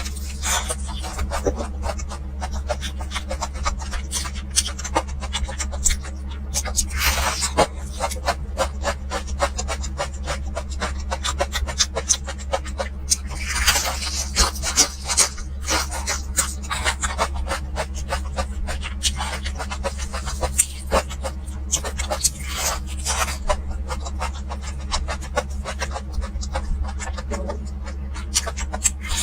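Close-miked eating sounds: a person biting and chewing a fried chicken drumstick, with many irregular crunching crackles, over a steady low hum.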